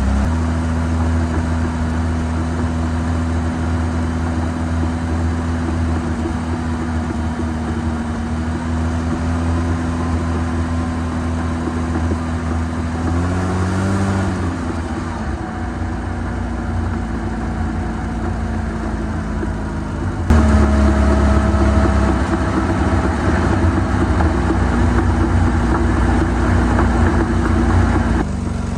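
Car driving, with steady engine and road noise and a low hum. The hum bends in pitch about halfway through, then the sound turns abruptly louder and changes about two-thirds of the way in.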